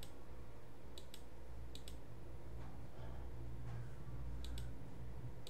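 Computer mouse clicking: three quick pairs of sharp clicks, about one second, two seconds and four and a half seconds in, over a low steady hum.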